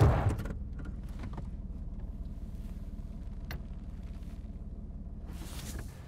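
Steady low drone of a car's engine and road noise heard from inside the cabin, with the tail of a loud impact dying away in the first half second and a few faint clicks and creaks.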